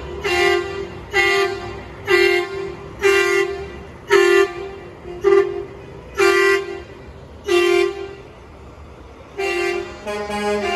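Semi truck air horn sounded in a long series of short blasts, about one a second. After a brief pause near the end the blasts resume, quicker and closer together.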